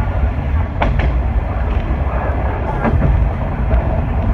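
Diesel railcar running along the track: a steady low rumble, with the wheels clicking over rail joints twice, each time a quick double click.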